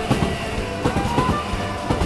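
Music with a steady beat: held tones over repeated percussive strokes.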